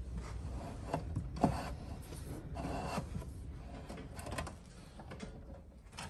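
A bundle of insulated electrical wires rustling and scraping as it is worked through a hole in the wall into a breaker panel, with a couple of light knocks in the first two seconds.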